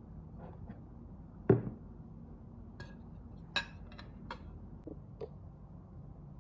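Objects being handled and set down: one solid thump about one and a half seconds in, then half a dozen light clicks and taps.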